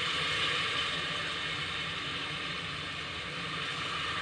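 Onion-tomato masala frying in oil in an open pressure cooker pot, sizzling steadily.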